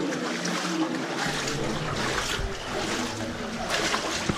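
Shallow flowing water splashing and sloshing as feet wade through it inside a narrow rock tunnel, with irregular steps in the water.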